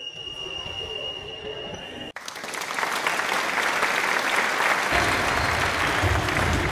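A steady high tone, then an abrupt switch about two seconds in to a dense, even clapping-like noise resembling applause.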